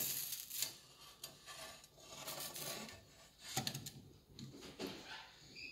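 Light clicks, knocks and rubs of a nonstick frying pan being handled and shifted on a glass-top electric stove, with a brief squeak near the end.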